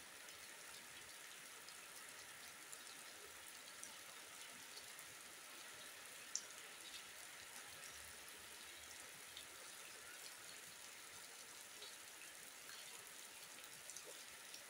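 Rain falling steadily: a faint, even hiss with scattered sharp ticks of single drops landing close by, the loudest about six seconds in.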